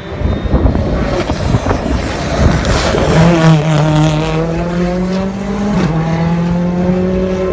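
Ford Fiesta R5 rally car's 1.6-litre turbocharged four-cylinder engine running hard. The sound is rough and noisy for the first few seconds, then settles into a steady high engine note that climbs slowly and steps down a little about six seconds in.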